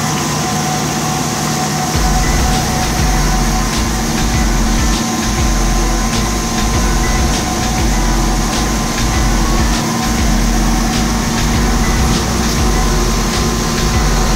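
Unique 2722 CNC door machining center running a cycle: a steady machine hum from its router motors, with a deeper rumble that sets in about two seconds in.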